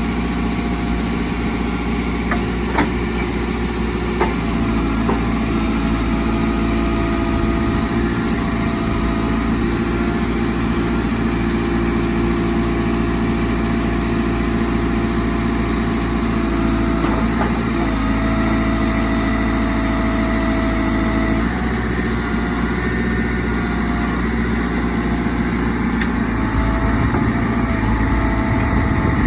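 2007 JCB 3CX backhoe loader's four-cylinder diesel engine running steadily at idle. A couple of sharp clicks come a few seconds in, and the engine note shifts slightly about two-thirds of the way through.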